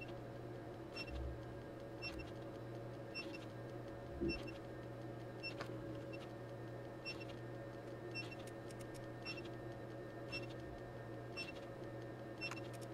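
Faint short electronic double beeps, about one a second, with scattered soft clicks and a steady low hum, from bench test gear as a transient generator fires a series of positive and negative 1 kV surge pulses into a multimeter.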